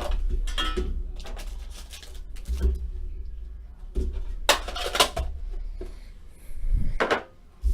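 Hockey card packaging and a metal card tin being handled: a run of scrapes, rustles, clicks and light clatter over a steady low hum.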